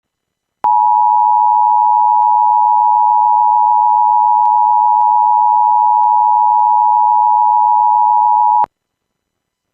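Emergency alert attention tone: one loud, steady, unbroken tone lasting about eight seconds that starts and cuts off abruptly. It signals that a tornado warning is about to be read.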